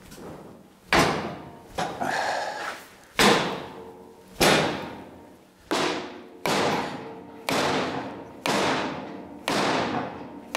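About nine sharp metallic knocks, roughly one a second, each with a short fading ring, as a 36-inch Ridgid steel pipe wrench is jerked again and again against the seized top nut of a 50-ton bottle jack. The nut does not budge.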